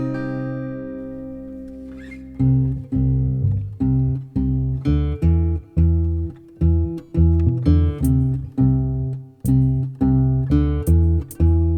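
Instrumental music: a held chord fading away, then from about two and a half seconds in, acoustic guitar notes picked in a steady rhythm over low bass notes.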